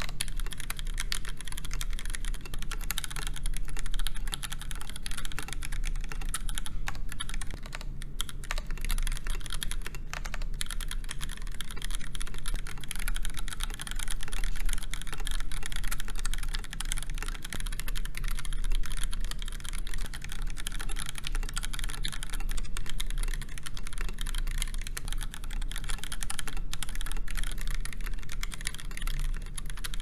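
Continuous fast typing on a KBD8X MKII mechanical keyboard built with a brass full plate, stock Gateron Yellow linear switches and GMK keycaps, a dense stream of key clicks. The case alternates between full aluminum and an aluminum top with a polycarbonate bottom. A steady low hum sits underneath.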